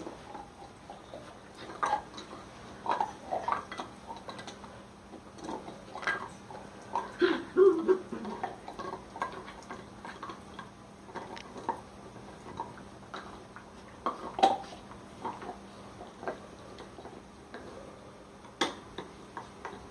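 Two dogs gnawing and tugging at a deer antler: irregular hard clicks and knocks of teeth against the antler, scattered unevenly.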